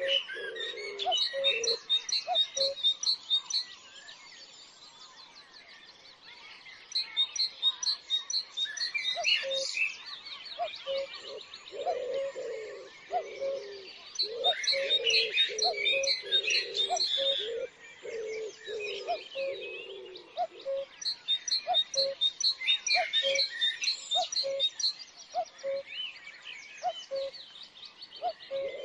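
Garden birdsong: small songbirds chirping and trilling in high-pitched bouts, with a pause a few seconds in, over a dove or pigeon cooing in short low notes repeated throughout.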